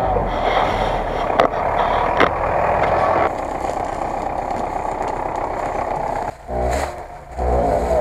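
GAZ-66 truck's engine running under load as it crawls over rough ground, with a few sharp clattering knocks. The sound changes about three seconds in. Near the end it drops away briefly before a steadier engine note comes in.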